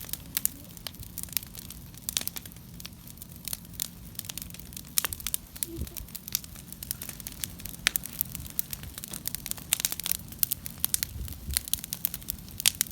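Large wood bonfire crackling and popping, with many sharp, irregular pops in quick succession.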